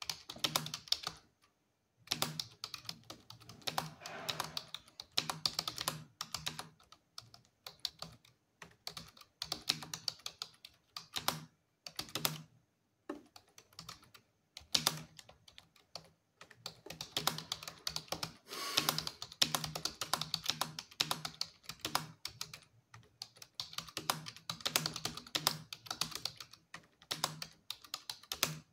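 Typing on a computer keyboard: fast runs of key clicks broken by short pauses of about a second.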